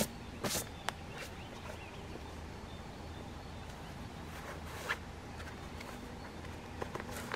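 A few sharp crunches and rustles of movement on the forest floor in the first second or so, then single ones about five seconds in and near the end, over a faint steady outdoor background.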